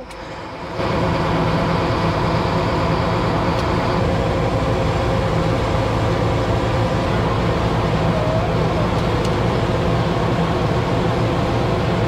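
Combine harvester running, heard from inside the cab: a steady engine-and-machinery drone with a low hum, which starts abruptly about a second in.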